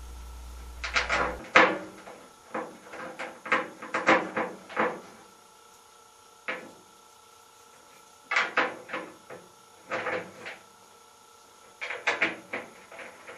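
Dryer drum baffle being handled and fitted against the metal dryer drum: irregular clusters of short knocks, clunks and scrapes with quiet gaps between them. A low hum cuts off about a second and a half in.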